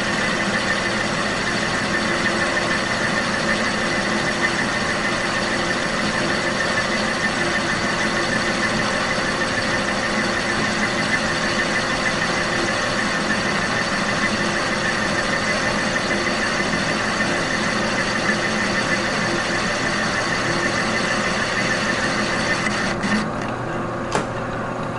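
Victor metal lathe running while a brazed carbide tool turns down the sprayed-metal coating on a sander spindle's seal journal: a steady machine hum under a higher cutting noise. Near the end the cutting noise drops away and the lathe keeps running, with a single click.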